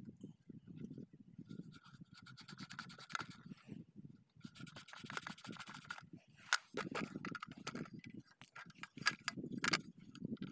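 Scratching and scraping as the collector-ring head of a center pivot irrigation system is cleaned by hand, mixed with irregular sharp clicks and taps of the tool against the metal rings and plastic terminal blocks.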